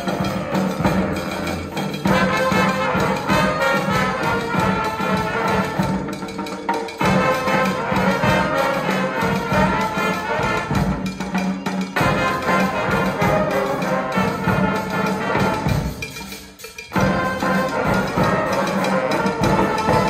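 Street brass band playing: trombones, trumpets and saxophones over percussion, with a steady low bass note. The music drops away briefly near the end, then comes back in.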